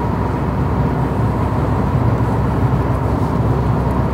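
Steady low rumble of a car's engine and tyres, heard from inside the cabin while driving uphill through a long road tunnel.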